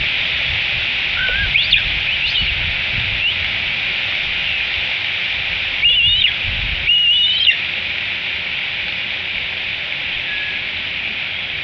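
Bald eagles at the nest giving high, wavering whistled calls: a few short ones near the start, then two louder bouts about six and seven seconds in, over a steady hiss of rain.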